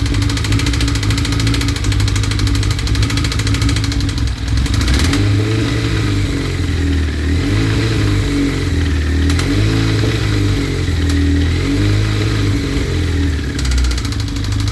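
1992 Suzuki GSX-R 1100's inline-four engine running at idle. From about four seconds in, its speed rises and falls a little every couple of seconds.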